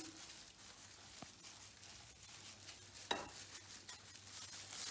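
A steel spoon stirring and scraping a dry mixture of rice flour, chopped vegetables and microgreens in a bowl, with soft rustling and a sharp click about a second in.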